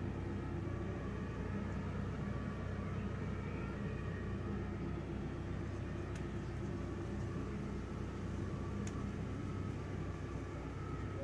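Steady hum of an idling engine, with a couple of faint clicks.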